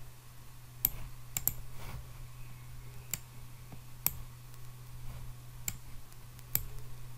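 Computer mouse clicking: about seven sharp single clicks at irregular intervals, two of them in quick succession about a second and a half in, over a steady low hum.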